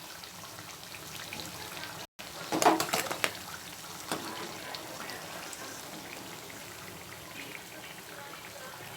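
Pieces of batter-coated bread deep-frying in hot oil, a steady sizzle. About two and a half seconds in, a quick cluster of sharp clicks and knocks, the loudest sounds here, comes over the sizzle.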